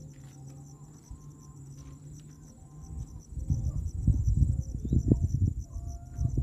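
Insects chirring steadily and high-pitched. About three seconds in, a loud, uneven low rumble joins them and stays on.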